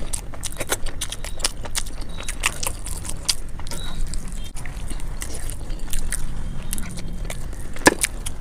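Close-up eating sounds: biting and chewing with many quick wet mouth clicks and crunches, played back at double speed. A single louder click near the end.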